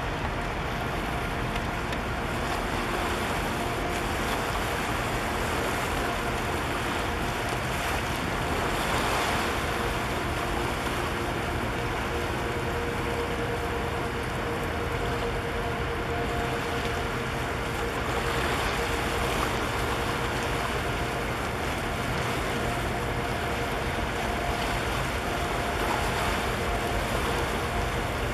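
Wind on the microphone and water along the shore, with a steady engine hum from a passing container ship and its harbour tug.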